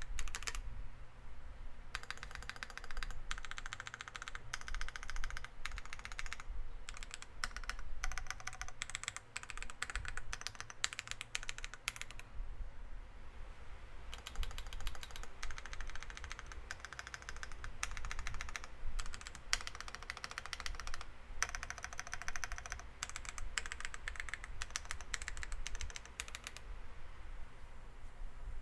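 Typing on a mechanical keyboard fitted with factory-lubed Akko Cream Black Pro linear switches and PBT keycaps in an aluminium case with a polycarbonate plate: dense runs of rapid key clacks, broken by brief pauses a few times.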